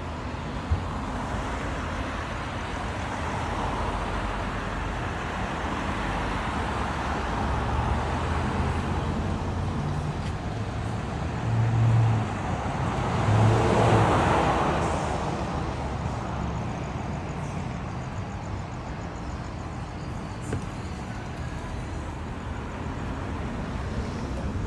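Street traffic: cars going by on the road, one passing loudest about halfway through, its noise swelling up and fading away over a steady background hum.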